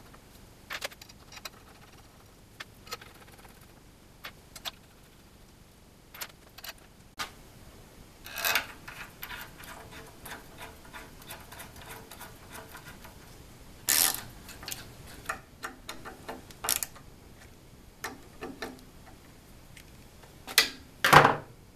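Irregular small metallic clicks and taps of cap screws and an aluminum side plate being handled and screwed onto an aluminum extrusion frame. A few louder clacks stand out, two of them close together near the end.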